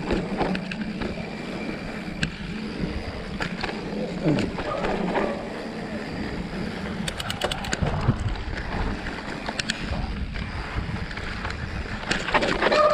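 Mountain bike riding fast down a dusty dirt trail: tyres rumbling over dirt and rocks, with scattered clattering knocks from the bike over bumps. A brief pitched sound comes near the end.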